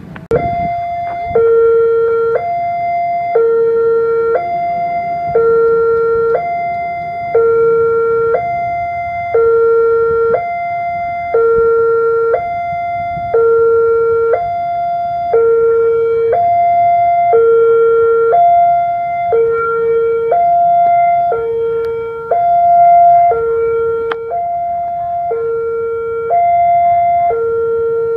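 Railway level-crossing warning alarm sounding an electronic two-tone signal: a higher and a lower tone alternate without a break, one high-low pair about every two seconds, warning that a train is approaching and the crossing is closed. It cuts in abruptly just after the start.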